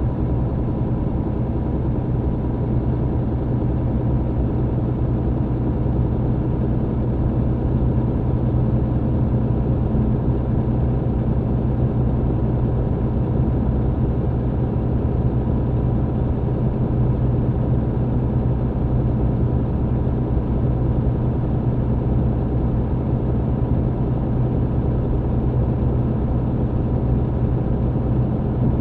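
MAN TGX truck's diesel engine running at a steady pitch, heard from inside the cab together with road noise.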